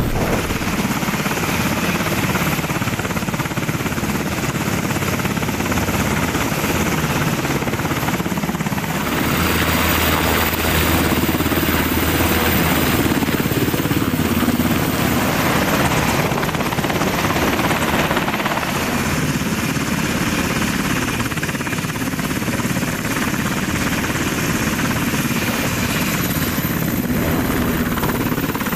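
UH-60 Black Hawk helicopter running at close range while flying low, its twin turboshaft engines and main rotor making a loud, steady noise mixed with the rush of its rotor downwash.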